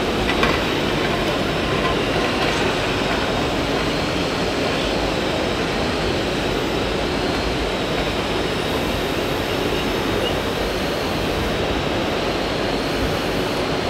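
Steady mechanical running noise of a radio-controlled hydraulic excavator at work, with a thin high whine that rises slightly in pitch a few times as the arm moves, over a constant loud din of hall noise.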